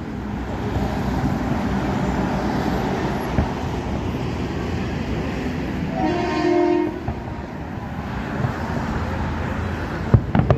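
Steady low rumble of passing rail or road traffic, with a horn sounding one pitched note for about a second near the middle. A few sharp pops near the end.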